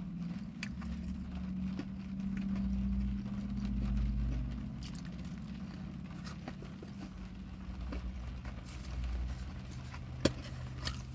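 Inside a parked car in the rain: a steady low hum with scattered faint ticks of raindrops on the car, and one sharp click about ten seconds in.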